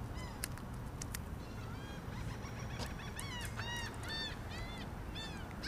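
A bird calling again and again: short calls that rise and fall in pitch, coming closer together in the second half.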